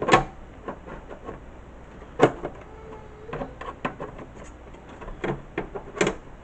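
Scattered knocks and clicks of a hard drive and its mounting hardware being forced into a desktop PC case, with a sharp knock right at the start and another about two seconds in.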